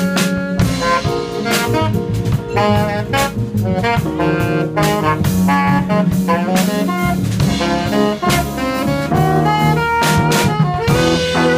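Live small-group jazz: an alto saxophone plays a busy solo line of quickly changing notes over a drum kit with cymbals and sustained low accompaniment.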